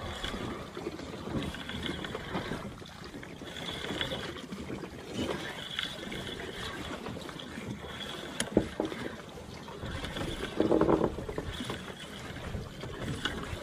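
Steady background noise aboard a fishing boat at sea, with a sharp knock about eight and a half seconds in and a brief louder rush about two seconds later.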